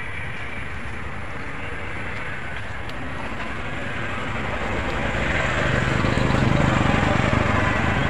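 Steady outdoor rumbling noise that grows louder about five seconds in.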